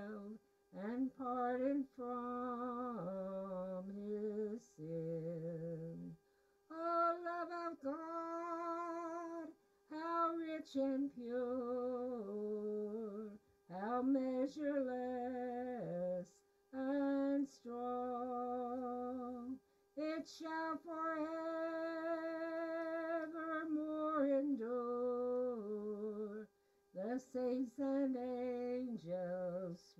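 A hymn sung by an elderly woman with a marked vibrato, in phrases broken by short pauses, with piano accompaniment.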